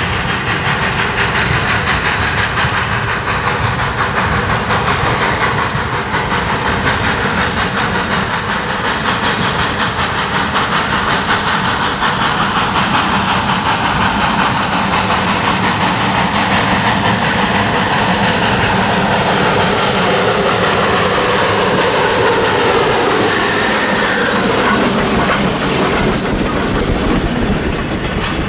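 Clover Valley Lumber Co. 2-6-6-2T No. 4, an articulated Mallet tank steam locomotive, working hard with a mixed freight as it approaches and passes. There is loud steady exhaust with steam hiss, and near the end the freight cars roll by with their wheels clacking over the rail joints.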